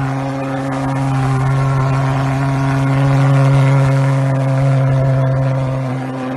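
Handheld thermal fogger's pulse-jet engine running, a steady low-pitched drone that dips slightly near the end as it puts out dense fog.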